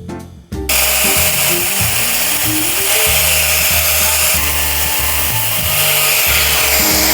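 Motor-driven wheel working a small copper piece: a steady, loud hissing grind that starts about half a second in and cuts off near the end.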